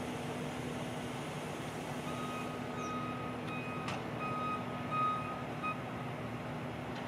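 Hi-rail rail inspection truck idling with a steady engine hum. About two seconds in, an electronic warning beeper starts: a long tone, then a few short beeps. There is a sharp click near the middle.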